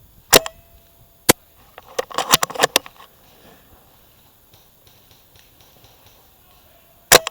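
A suppressed, spring-powered SSG10 airsoft sniper rifle fires: a sharp piston slam with a brief metallic ring after it. A single click comes about a second in, then a quick run of clicks and clatter from the rifle's mechanism. A second identical shot with its ring comes near the end.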